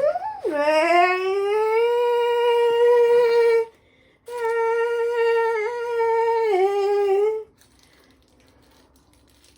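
Two long howling notes held at one pitch, with a quick swoop up and down at the start and a short break between them, like a voice taking a breath.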